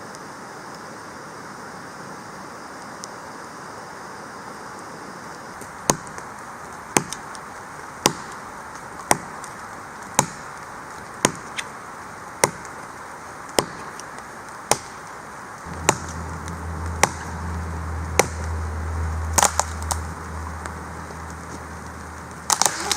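Wood being chopped with a blade, sharp strikes about once a second, over steady rain. About two-thirds through a low steady hum joins, and the strikes become more irregular.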